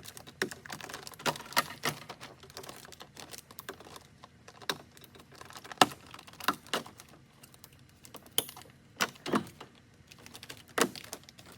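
Irregular sharp plastic clicks and taps from hands working inside an open car door, handling the trim and handle parts, at uneven intervals with the loudest tap about six seconds in.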